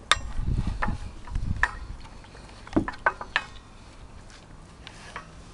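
Scattered sharp clicks and knocks from a metal grass-bag frame being handled and moved while it is painted, with a few low thumps in the first two seconds and fewer knocks near the end.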